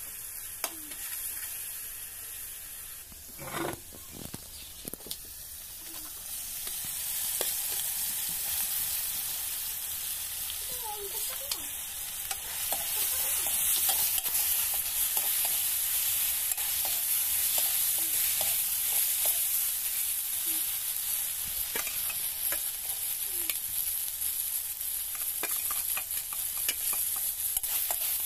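Boiled eggs and masala frying in oil in a metal kadai over a wood fire, sizzling steadily, with a flat metal spatula scraping and clicking against the pan as it is stirred. The sizzle grows louder about a quarter of the way in, and there is a single brief knock about three seconds in.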